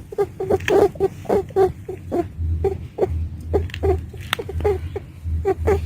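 Female pet rabbit making short, squeaky 'ii' calls in quick runs, a few a second, with brief pauses. A low hum sits under the calls from about halfway through.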